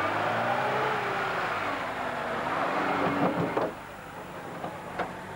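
Lada Niva's engine revving up and down as the 4x4 strains through deep mud, dropping back to a quieter idle after about three and a half seconds. There are a few knocks as the revving ends and a sharp click near the end.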